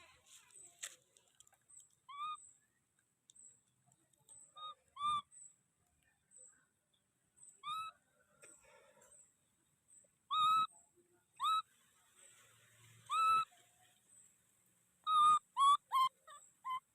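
Baby monkey crying with short, high, arched calls, about a dozen of them, coming closer together near the end; a distressed cry for milk.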